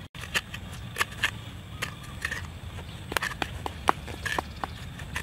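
Coconut shell halves being handled, with about a dozen short, irregular clicks and scrapes as a hand works the white flesh inside the shell.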